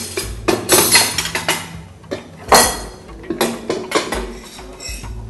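Dishes and cutlery clinking as food is served and taken at a dinner table: a string of sharp clinks, the loudest about two and a half seconds in.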